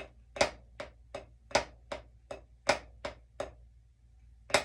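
Drumsticks playing the Swiss Army triplet rudiment slowly: a loud accent stroke followed by two quieter taps, repeated about three times at a little under three strokes a second. The playing stops about a second before the end.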